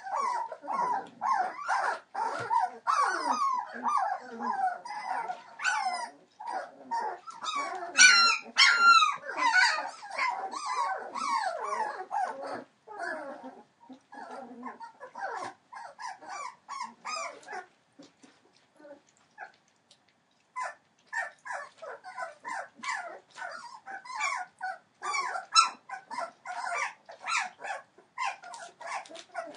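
Three-week-old Entlebucher Mountain Dog puppies whining and yipping in many short, overlapping high calls, with a louder squeal about eight seconds in and a brief lull about two-thirds of the way through.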